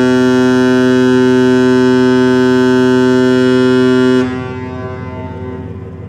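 Ship's horn of the Pelni passenger ship KM Lawit sounding one long, steady blast, a deep tone rich in overtones. It cuts off about four seconds in, with a brief echo after.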